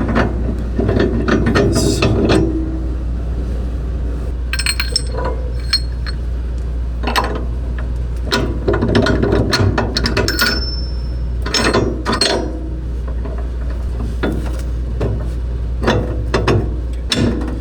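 Metal van suspension parts clicking and clinking in short spells of quick clicks every few seconds as they are handled and fitted, over a steady low hum.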